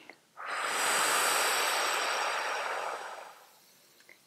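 A long audible exhale close to a clip-on microphone: a rush of breath that swells quickly and fades out over about three seconds.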